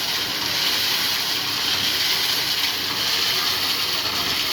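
Steady hissing rush of noise, strongest in the high range, with no bang or blast in it.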